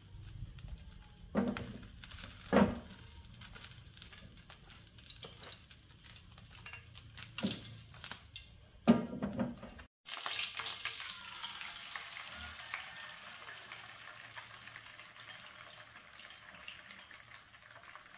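Cooking sounds: a few sharp knocks and clatter, then food sizzling in a hot pan, the hiss slowly fading.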